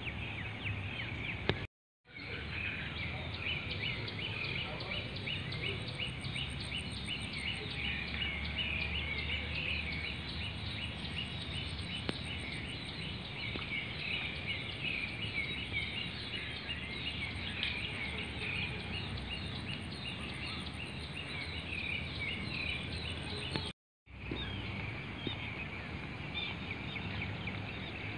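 Many birds calling and chirping together in a dense chorus of quick repeated notes, over a low steady rumble. The sound drops out briefly twice, about two seconds in and near the end.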